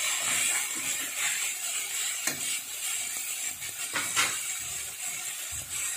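Onions and chopped tomatoes sizzling in oil in a kadhai, with a steel spatula scraping and knocking against the pan a few times as they are stirred.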